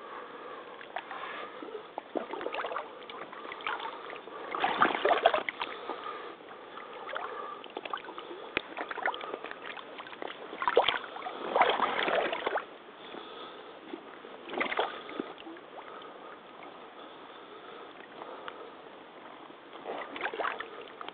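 Rubber crotch-high waders wading through shallow muddy pond water: water sloshing and splashing around the boots with each step. It is loudest in two longer bursts, about five seconds in and about eleven to twelve seconds in.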